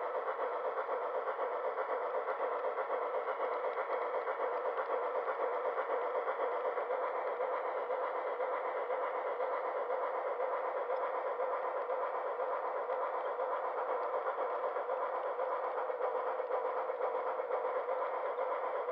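Steady whirring and rolling noise of an HO-scale model freight train in motion, its wheels running on the track, heard through a camera riding on a flat car in the train.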